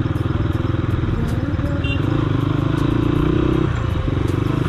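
Motorcycle engine running while riding, picked up on the bike itself. The note holds steady, rises a little, then dips and breaks briefly about three and a half seconds in.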